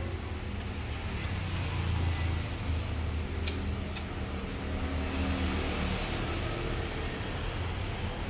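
A steady low hum of a running motor or engine, with two short clicks about three and a half and four seconds in.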